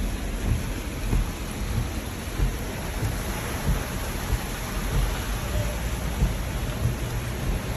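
Steady rain falling, with a continuous low, uneven rumble underneath.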